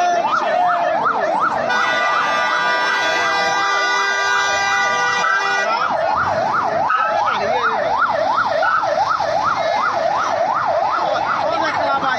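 Vehicle siren in a fast yelp, sweeping up and down about three or four times a second. A steady vehicle horn is held over it from about two seconds in to about six seconds in.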